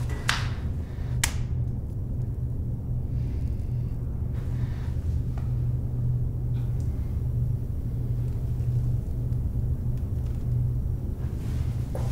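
Steady low rumbling drone with no melody, with two sharp clicks in the first second and a half.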